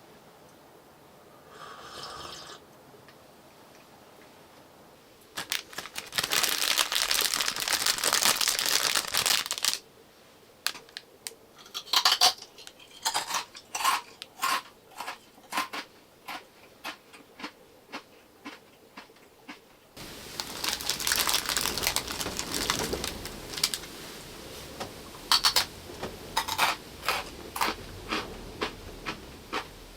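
Eating utensils clinking against a dish in a small enclosed space. Two stretches of dense rustling noise, each followed by a run of sharp, irregular clinks, roughly one or two a second.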